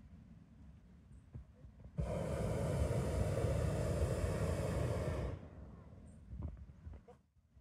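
Hot-air balloon's propane burner firing in a single blast of about three and a half seconds, starting and cutting off abruptly, heating the envelope during lift-off.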